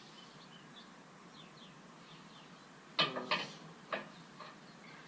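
Birds chirping faintly in the background, with a sudden metallic clatter about three seconds in and a single click a second later, as small metal hardware is handled.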